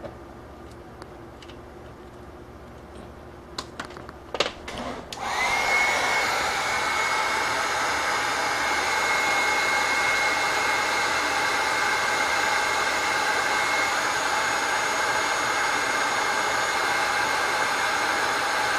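A few light clicks, then about five seconds in an electric heat gun switches on and runs steadily, a blowing fan with a thin high whine, shrinking heat-shrink tubing over the ebike throttle's Hall sensor wiring.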